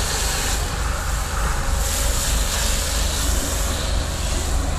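Fire hose jet spraying water onto a burning car: a steady rushing hiss that swells a little now and then, over a continuous low rumble.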